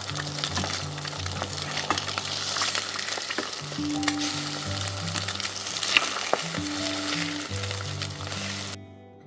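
Food sizzling as it fries in a pan, with sharp clicks of a utensil stirring it. The sizzling cuts off suddenly near the end, leaving soft music.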